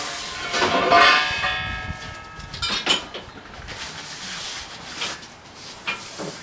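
Metal parts clanging as they are handled: one loud clang about a second in rings on for about a second and a half, followed by a few lighter knocks.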